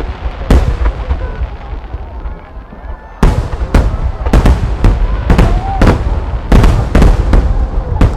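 Aerial firework shells bursting: one sharp boom about half a second in, then from about three seconds in a rapid string of booms, roughly two a second, over a deep rumble.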